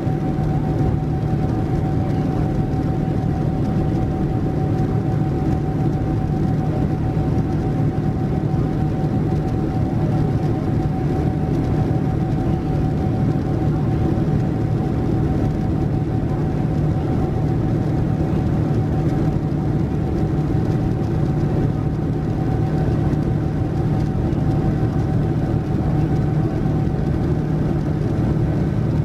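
Boeing 787-9's Rolls-Royce Trent 1000 turbofan heard from inside the cabin while climbing out: a steady roar and low hum with a steady whine, joined by a fainter higher tone about three-quarters of the way through.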